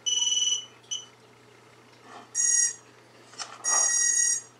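Series of electronic beeps from an FPV racing quadcopter being powered up: a half-second steady beep, a short blip, then two longer, brighter multi-tone beeps. They come through a smartphone speaker playing back a recording.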